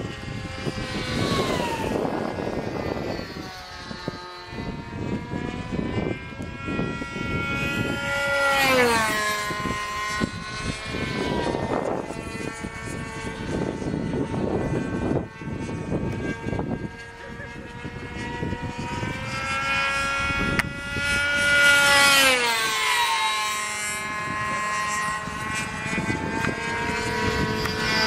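Radio-controlled model airplane's motor and propeller whining as it flies fast passes. The pitch drops sharply each time it goes by, three times.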